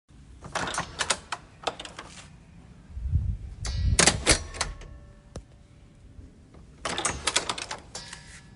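A door being worked open and shut: rapid rattling clicks of the handle and latch, a heavy thump about three to four seconds in as the door meets its frame, then another run of latch clicks near the end.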